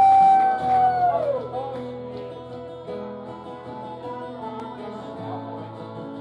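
A long held vocal note slides down and ends about a second in, followed by a steel-string acoustic guitar picking out the opening notes of a slow song.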